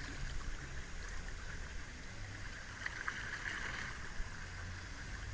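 Steady wash of flowing water in a water-park lazy river, heard while drifting along in it.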